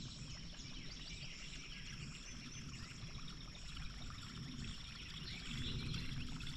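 Buzzbait being retrieved across the water's surface, its blade churning and sputtering in a steady stream of small splashes that grow a little louder toward the end.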